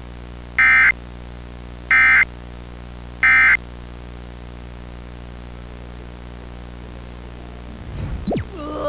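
Three short bursts of EAS SAME digital data tones, about a second and a half apart: the end-of-message signal that closes an emergency alert. A steady low hum runs underneath. Near the end comes a low thump with a quick sweep in pitch.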